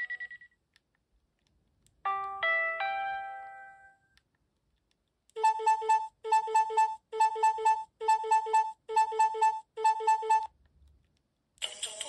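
LG Shine II GD710 phone playing its built-in message alert tones through its speaker. About two seconds in comes a short chime of a few bell-like notes that fades away. From about five seconds in, an electronic beep pattern, each burst a quick pair of tones, repeats for about five seconds; a new tone starts just before the end.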